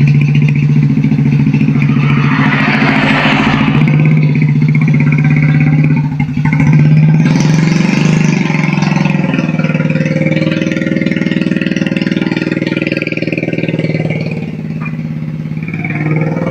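Small motorcycle engine running steadily, revved up about two seconds in and again about seven seconds in, then pulling away.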